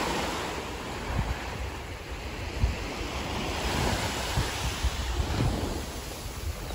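Small waves breaking and washing up over a sandy beach, with wind buffeting the microphone in irregular low gusts.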